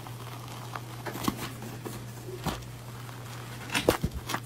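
Light handling noises, a few soft clicks and rustles, as a brown fabric pouch is held open and a cat paws at it, over a steady low hum.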